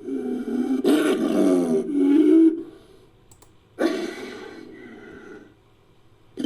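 Designed creature vocalization built from big-cat and dinosaur sound effects: a growling roar lasting about two and a half seconds, then a shorter second call that starts suddenly and fades away.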